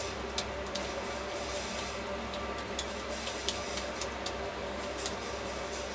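Wooden spatula pressing and smoothing a sticky barfi mixture in a metal tray, giving a few light, irregular ticks and scrapes over a steady background hum.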